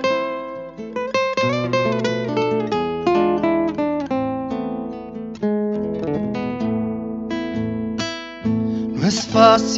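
Acoustic guitar playing an instrumental break in a ballad: a run of picked single notes and chords, going into fuller strummed chords near the end.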